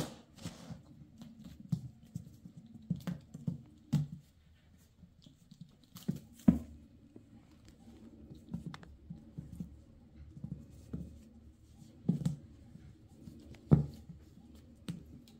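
Bengal kittens scampering and pouncing on a bare board while playing: irregular soft pattering and scuffs of paws, with a few louder thumps from landings, about a third of the way in and twice near the end.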